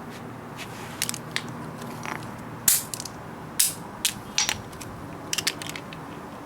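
Irregular sharp clicks and knocks of hand tools and metal parts being handled while working on a motorcycle's frame and fairings, over a steady low hiss.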